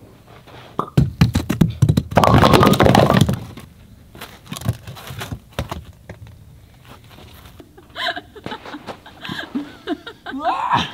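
A run of close knocks, then a rushing scrape lasting about a second and a half. Scattered taps follow, and brief voices come in near the end.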